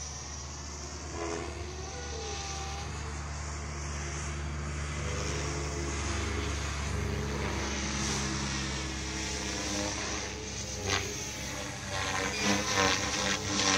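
WARP 360 radio-controlled 3D helicopter flying overhead on Pro 3D main rotor blades: a steady drone of motor and rotor. Its pitch steps up a little past the middle, and near the end the sound pulses unevenly as the helicopter manoeuvres.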